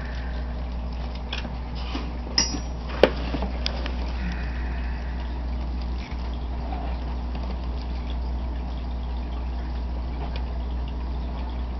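Aquarium filter running: a steady trickle of water over a constant low hum. Two sharp clicks, about half a second apart, come between two and three seconds in.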